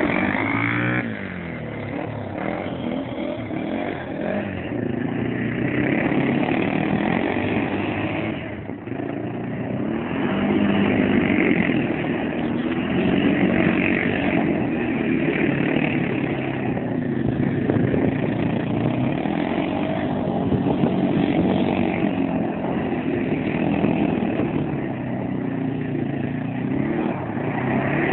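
Bombardier DS 650 quad's single-cylinder four-stroke engine revving up and down as the quad slides round in circles, with a short drop in revs about eight seconds in.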